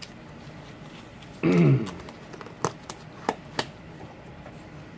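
A few light, sharp clicks and taps over steady room hiss, with a short murmured vocal sound about a second and a half in.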